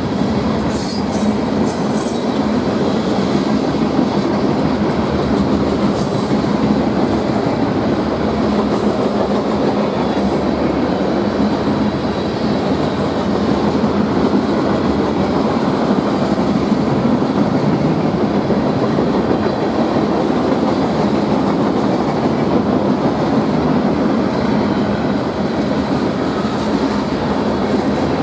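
Freight train cars rolling past at speed: a steady rumble and rattle of steel wheels on the rails, with a few brief high squeals in the first ten seconds.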